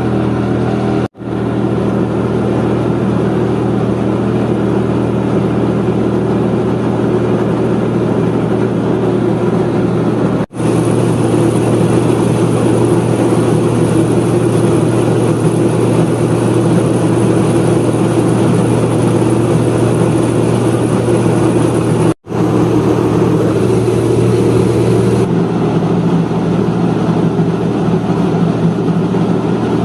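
A small motor-driven farm machine running steadily under load, with a constant low engine note. It drops out very briefly three times, and its tone shifts slightly near the end.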